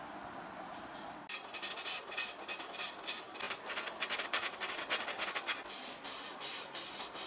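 Sandpaper rubbed quickly back and forth over the cut end of a steel pipe to smooth its sharp edge: a fast run of scratchy strokes starting about a second in.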